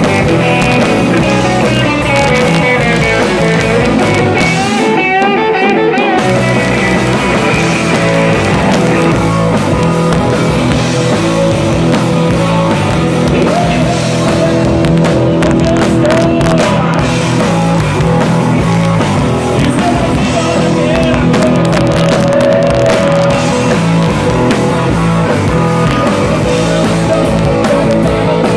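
Live rock band playing loud: electric guitars, electric bass and drum kit, with a lead guitar bending notes in the middle stretch. The low end and cymbals drop out for about a second around five seconds in.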